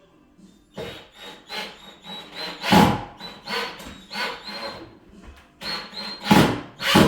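Cordless drill run in a series of short trigger bursts, about one or two a second, with a high whine, driving a long screw into the wood of the door frame.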